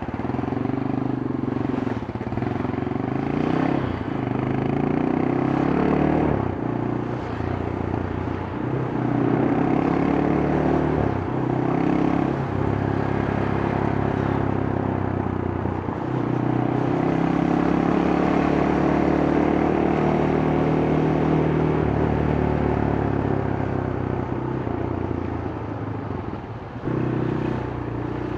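Yamaha Scorpio's single-cylinder four-stroke engine on its stock exhaust, ridden on the road. The revs climb and drop back several times as it shifts through the gears, then hold steady at a cruise for several seconds, with a few more rev changes near the end.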